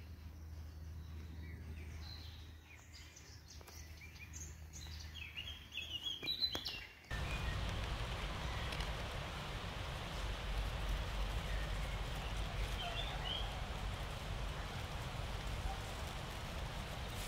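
Outdoor meadow ambience with small birds chirping over a low hum. About seven seconds in it cuts abruptly to a louder, steady rushing noise with a low rumble and an occasional faint chirp.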